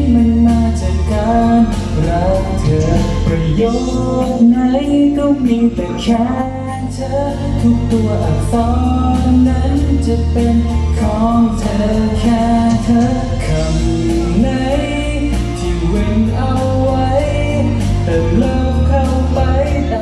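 A man singing a song live into a handheld microphone, with steady musical accompaniment and a held bass line underneath.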